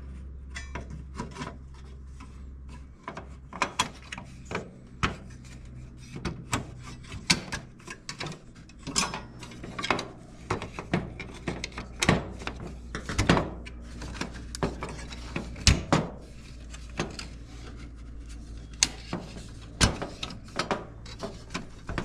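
Irregular clicks, knocks and scrapes of metal dryer parts being worked by hand, as a piece is moved from the old drum bearing part into the new one, over a low steady hum.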